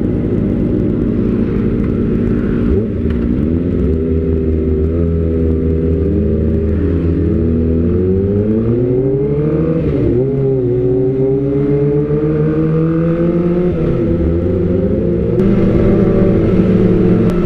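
Kawasaki ZX-25R's 250 cc inline-four through an Austin Racing aftermarket silencer, idling for about three seconds, then pulling away and revving up through the gears. The pitch climbs and drops back at each shift.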